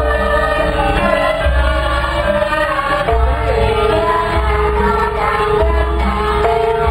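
Javanese gamelan ensemble playing continuously, its bonang kettle gongs among the instruments, with singing over it.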